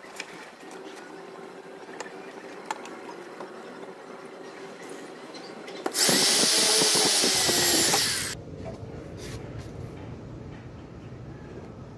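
Corded electric drill running for about two seconds, boring a hole through plywood, starting about six seconds in and stopping abruptly.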